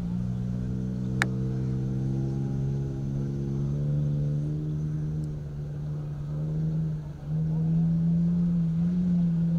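Rally SUV's engine running at fairly steady revs, its pitch sagging slightly through the middle and picking up again a little after seven seconds. A single sharp click about a second in.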